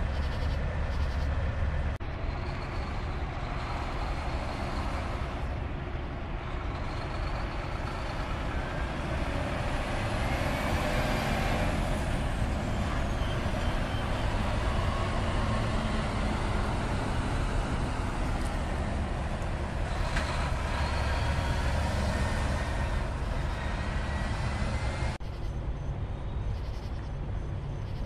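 Diesel engines of semi-trucks running, with one tractor-trailer pulling away and passing close by. The rumble grows louder toward the middle as it goes by.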